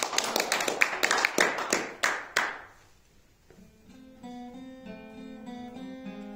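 Applause from an audience for about two and a half seconds, dying away; after a short pause an acoustic guitar begins the opening of a song, quieter, with picked notes ringing over one another.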